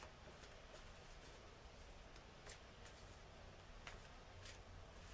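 Near silence: room tone with a low hum and a few faint soft clicks of a tarot deck being handled before it is cut.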